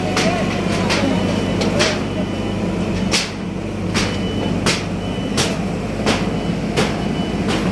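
Sunward SA250 rotary drilling rig's diesel engine running steadily, with sharp knocks repeating about every three quarters of a second.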